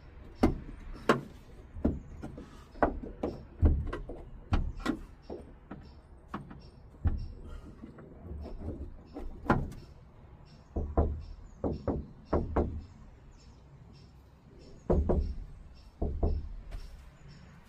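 Irregular knocks and thumps on a Ford Transit van's sheet-metal roof panel as self-adhesive sound-deadening mat is pressed and rolled onto it. Some strikes are sharp, others dull and low.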